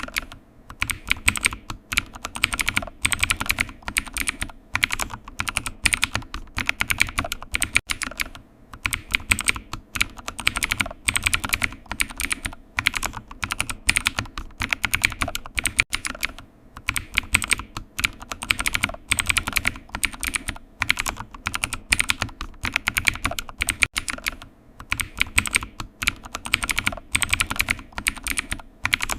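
Typing on a computer keyboard: a fast, steady run of key clicks, broken by brief pauses every several seconds.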